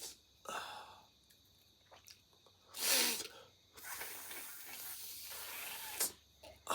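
A person with a heavy cold and a blocked nose sneezing and breathing hard. There is a short burst about half a second in, a loud sneeze about three seconds in, then a long noisy breath of about two seconds, and a sharp short sniff near the end.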